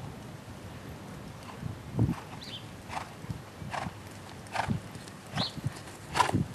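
Hoofbeats of a ridden horse on dirt arena footing: irregular dull thuds about every half second to second, getting louder near the end as the horse comes closer.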